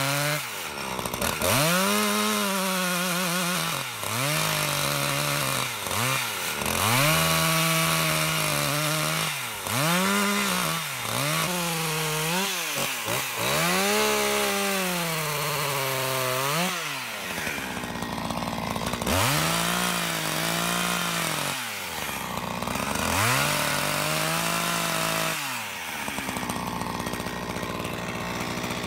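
Husqvarna two-stroke chainsaw cutting into a frozen tree stump, revving up and dropping back over and over, its pitch rising and falling every second or two as the chain bites and comes out of the wood.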